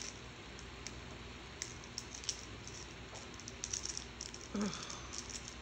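Light, irregular clicks and crinkles of a small plastic packet being picked and pried at with the fingers, a packet that is hard to open.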